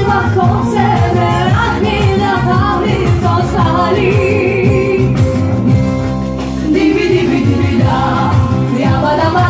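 Pop song with a solo voice singing a wavering melody over a steady bass beat.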